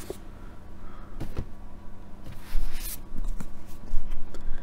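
Books being handled: several light knocks and taps, with a brief sliding rustle about two and a half seconds in as one book is put aside and the next is picked up.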